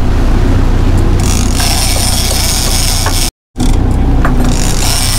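Large conventional trolling reel being cranked, its gears whirring in stretches, over the steady low rumble of the boat's engine. The sound cuts out completely for a moment a little after three seconds in.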